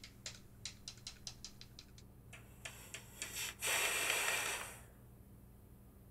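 Makeup sponge dabbing into a compact of powder foundation: a run of soft, quick taps, about five a second, for the first two seconds. Then a louder hissing rush lasting about a second, a little past the middle.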